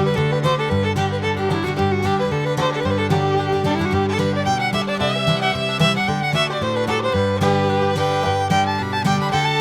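Background instrumental music led by a fiddle, in a bluegrass or country style, over a steady bass line.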